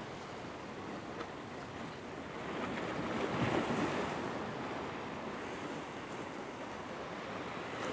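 Ocean surf washing and breaking against the jetty's rocks, a steady rush that swells to a louder wash about three to four seconds in.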